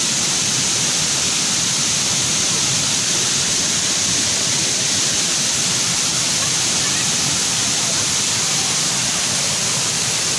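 Waterfall pouring steadily, an even, unbroken rush of water.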